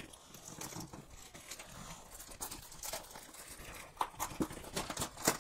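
Cardboard parcel being cut and pried open by hand: a blade scraping along packing tape, crinkling plastic wrap and cardboard rubbing, with a few sharper clicks about four seconds in and a louder one near the end.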